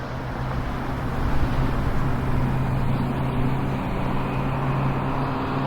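Steady vehicle running noise: a constant low engine hum over a broad rushing noise, with no change in pitch.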